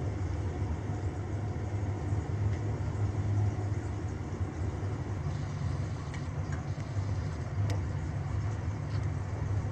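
Salted lake prawns grilling on a gas stove: a steady low rumble from the burner, with a thin hiss and a few faint ticks about six and seven and a half seconds in.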